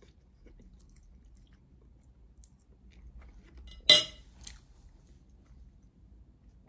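Quiet chewing of a mouthful of spaghetti. About four seconds in comes a sharp, ringing clink, the loudest sound here, as a metal fork is set down on a ceramic plate, followed by a smaller tap.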